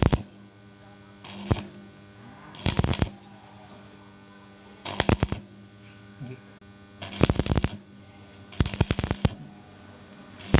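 Electric arc welding in short stop-start bursts, five brief arcs each under a second long, laid one after another to fill a gap in a pipe. A steady electrical hum runs between the bursts.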